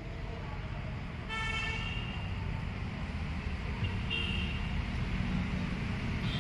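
A vehicle horn honks for under a second about a second in, and a shorter, fainter toot follows around four seconds, over a steady low rumble.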